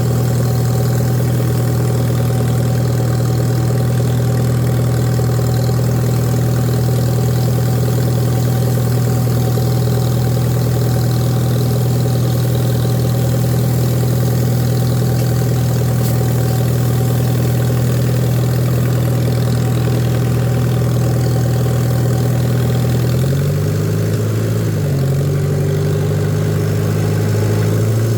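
Tractor engine running at a steady speed; near the end its pitch rises and falls a few times as the engine speed changes.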